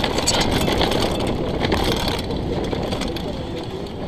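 Wind buffeting the camera microphone over a mountain bike's tyres rolling down a dirt trail, with short rattles and clicks from the bike over bumps.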